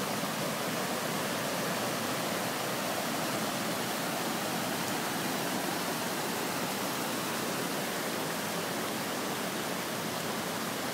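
Muddy floodwater rushing steadily and pouring over a low ledge: an even, unbroken rush of water.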